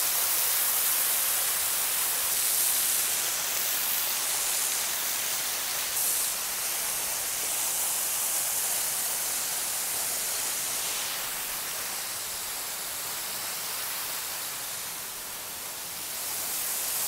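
Waterfall cascading onto rocks and into a pool, with spray falling close by: a steady, hissing rush of water.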